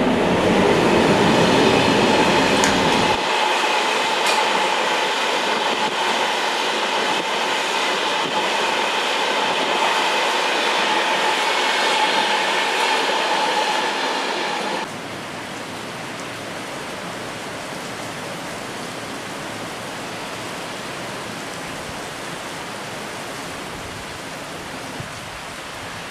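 Passenger train running through a station at speed, a loud rushing rumble with a steady whine over it. It cuts off suddenly about 15 seconds in, leaving a steady wash of storm rain and wind.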